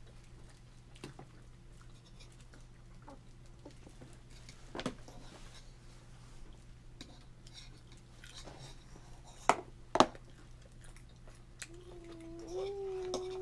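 A toddler's fork clacking on the high-chair tray and plate: scattered light taps, then two sharp knocks close together just past the middle. Near the end a toddler's voice hums one long note that lifts slightly.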